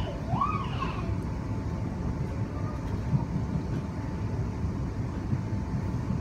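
Electric passenger train running, heard from inside the carriage: a steady low rumble of wheels on track with a constant thin whine. A brief gliding, voice-like sound comes about half a second in.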